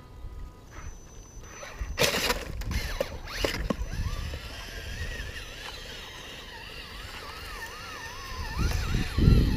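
Radio-controlled rock crawler with a Tekin brushless motor, its wheels and chassis knocking and scraping on logs about two seconds in as it drops off a log pile. It then drives off with a thin motor whine that wavers up and down in pitch as the throttle changes. A louder low rumble comes near the end.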